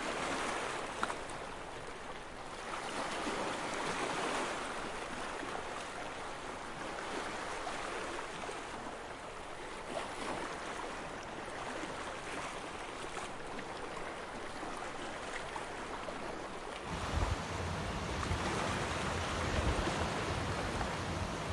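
Small Mediterranean Sea waves washing in, the water noise swelling and falling back every few seconds. A low rumble joins near the end.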